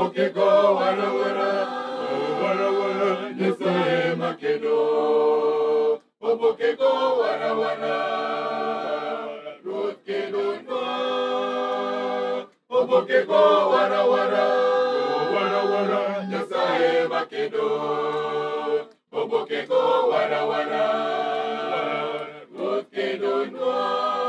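Mixed choir of men's and women's voices singing a cappella in long phrases, with three brief breaks where the sound drops out completely.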